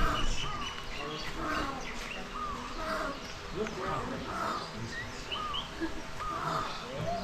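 Many birds calling over each other: short arched calls repeating about once or twice a second, mixed with squawks, chirps and a few rising notes.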